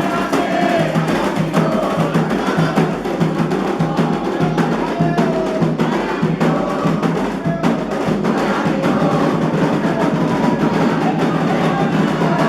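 Candomblé ritual music: hand drums beating a fast, steady rhythm with a sharp clicking percussion part, under voices singing.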